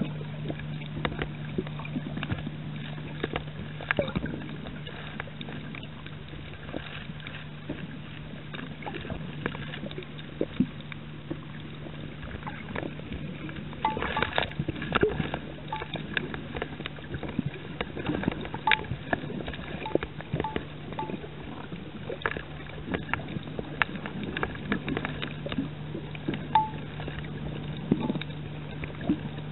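Underwater sound over a coral reef: a steady low hum with many scattered sharp clicks and crackles, a denser cluster of clicks about halfway through.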